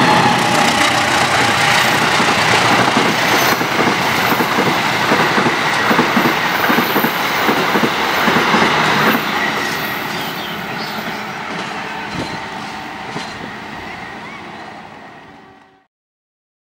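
A KAI CC203 diesel locomotive and its passenger coaches passing close at speed, with the steady clatter of wheels over the rails. The noise eases after about nine seconds as the last coaches go by, then fades to silence near the end.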